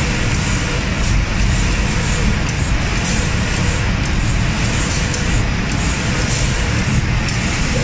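Automatic spray-painting machine spraying paint over cabinet doors: a loud, steady hiss and rush of spray and machinery, the top of the hiss dipping briefly about every one and a half seconds.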